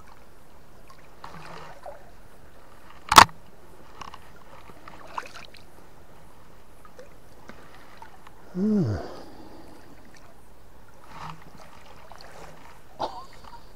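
River water running steadily, with one sharp knock about three seconds in and a short, falling vocal 'hmm' near the middle.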